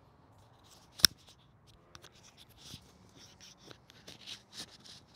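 Close rustling and scratching handling noise in short irregular strokes, with one sharp click about a second in.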